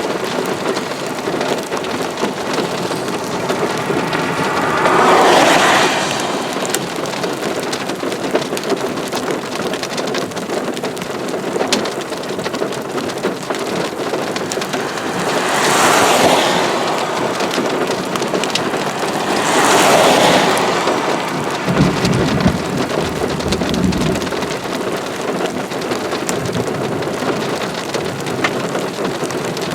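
Heavy rain during a severe thunderstorm, falling steadily. The rain noise swells louder three times for a second or two each, and a low rumble comes in a little past two-thirds of the way in.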